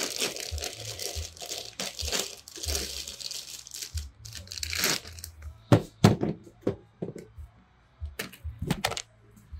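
Packaging being torn open and crinkled, a rustling, tearing sound through the first half, followed by several short sharp knocks and clicks in the second half.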